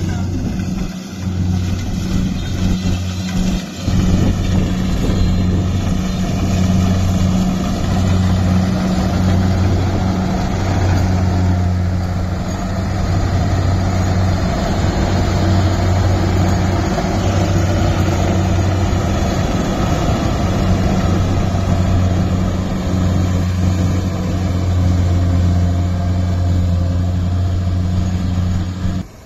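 Kubota DC-68G combine harvester running as it cuts rice: a steady loud diesel drone with a dense wash of machine noise above it.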